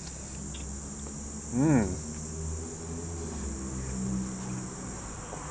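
A man with a mouthful of pizza gives a short 'mmm' that rises and falls in pitch about a second and a half in, then hums faintly, a sound of approval at the taste. Beneath it runs a steady high-pitched hiss.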